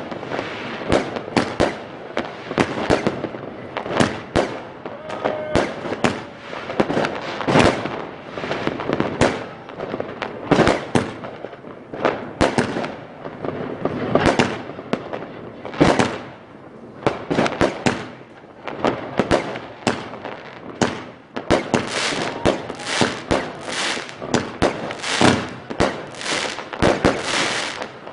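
Fireworks bursting overhead one after another: a rapid, irregular run of sharp bangs, several a second at times, with crackling between them and hardly a pause.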